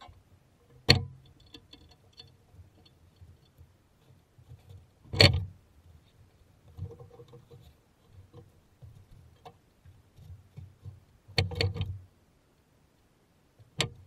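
Dead pine and spruce logs being rolled off a wooden sled onto a log pile: four loud, sudden wooden knocks, the third a longer clatter, with quieter scuffing and shuffling between them.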